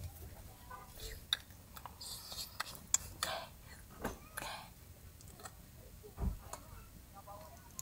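Faint, soft voice sounds mixed with scattered sharp clicks and taps.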